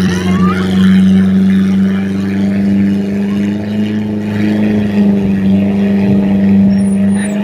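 An engine running at a steady speed, a constant loud drone that holds one pitch throughout.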